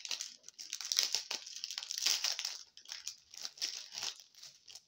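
Small clear plastic bags of diamond-painting rhinestones crinkling as they are handled, a busy crackle that thins out near the end.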